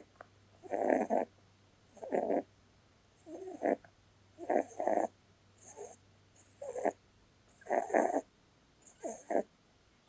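Holland lop rabbit snoring in its sleep: short snores about once a second, each well under half a second long. Holland lops' short, flat faces can cause snoring.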